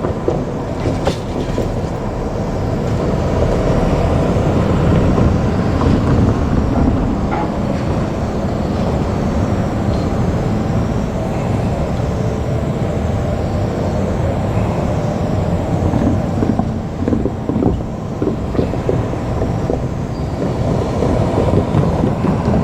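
JR Kyushu 787-series electric express train running past at a level crossing, its wheels clattering over the rail joints in a steady loud rumble. The crossing's electronic warning alarm rings over the train noise.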